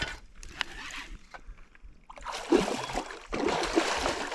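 Hooked flathead catfish thrashing and splashing at the water's surface, starting about two seconds in and going in two bouts.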